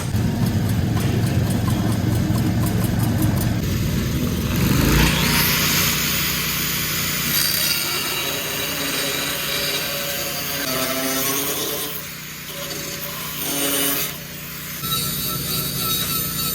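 Engine-driven welding generator running steadily. About five seconds in, a loud, harsh hissing joins it, from the cutting or welding work on the aluminum, and dips for a moment near the end.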